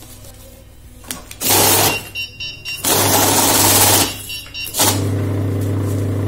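Kores EasyCount 440 currency counting machine running its motor with UV and magnetic fake-note detection switched on. Banknotes rush through the feed in three bursts, with a high electronic beeping between them.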